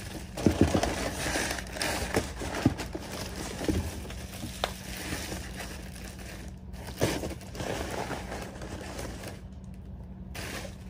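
Bubble wrap crinkling and rustling as it is pulled out of a cardboard shipping box, with sharp crackles and knocks in the first three seconds and another about seven seconds in.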